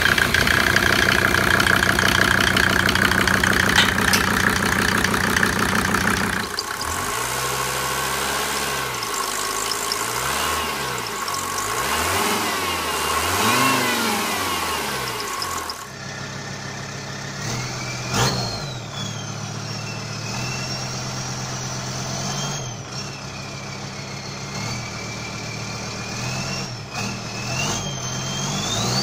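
Mercedes-Benz inline five-cylinder diesel engine running in several short clips: steady running first, then revved up and down repeatedly, then steadier running under a high whistle that glides up and down.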